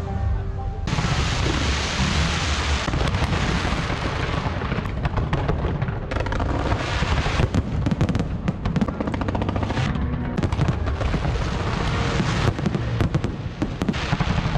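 Fireworks display: aerial shells bursting and crackling in a dense, continuous barrage of bangs, starting suddenly about a second in.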